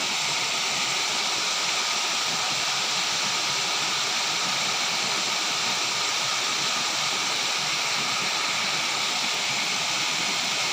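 Water rushing steadily through a sluice gate, an even hiss that does not change.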